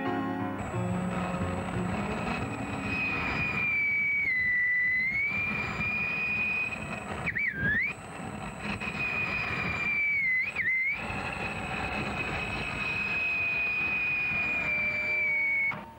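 Steam train running, a steady rumble with a long, high, steady tone over it that dips in pitch a few times and cuts off near the end.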